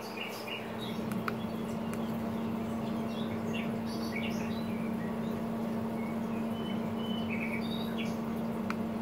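Steady hum of a Traeger PTG+ pellet grill's fan running during startup. Birds chirp here and there over it, and there are two faint clicks from the grill controller's buttons.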